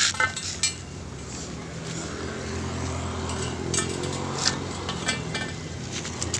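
Galvanized hollow steel pipes clinking and knocking against each other as they are handled and laid out on the ground: a few sharp metallic clinks. From about halfway, a steady engine hum is heard underneath.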